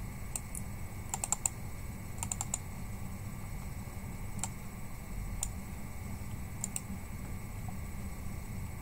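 Scattered sharp clicks from computer mouse and keyboard use: single clicks and quick runs of three or four, over a low steady hum.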